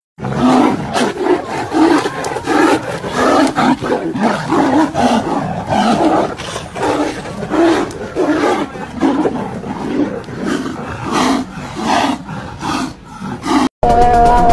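A lion and a tiger fighting: a rapid, uneven run of short, rough roars, about one or two a second. Near the end they break off and music begins.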